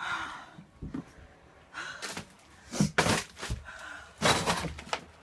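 Several knocks and longer scraping bursts in a small room, about four in a row, the loudest near the middle.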